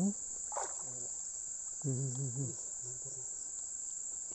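Steady high-pitched chirring of night insects, crickets, with a man's voice murmuring briefly near the middle.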